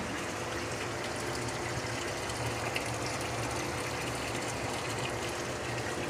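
Water running steadily from a pipe into a glass aquarium tank, filling it slowly at low pressure.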